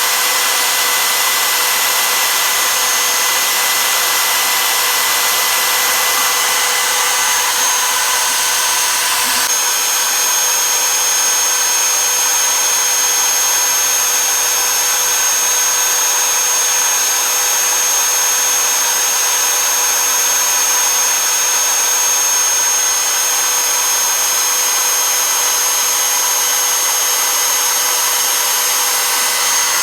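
CNC router's spindle motor running steadily at speed with a high whine while its V-bit cuts star shapes into plywood. The whine's pitch shifts slightly about nine seconds in.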